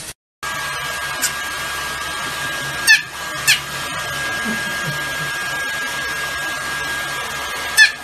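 A hair dryer running steadily with a thin, constant whine, blowing on a small white Pomeranian puppy in a bucket. Over it the puppy gives two quick high squeaky yelps, falling in pitch, about three seconds in, and another near the end.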